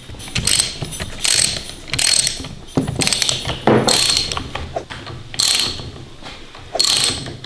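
Socket ratchet wrench clicking in a series of short bursts as the bolts holding a new carburetor on a string trimmer are tightened.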